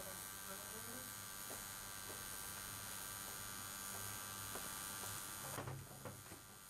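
Permanent-makeup (eyeliner tattoo) machine running with a low, steady electric hum and buzz. A brief handling noise comes near the end.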